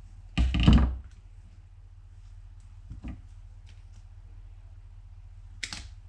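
Workbench handling noises as a length of wire is measured and cut: a loud thump of handling about half a second in, a faint click around the middle, and a short sharp snip of wire cutters near the end.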